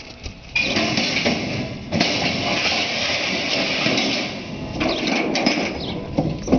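Steel mesh loading ramp scraping and rattling as it is slid into a pickup's bed, starting abruptly about half a second in and easing off about five seconds in. A sharp knock near the end.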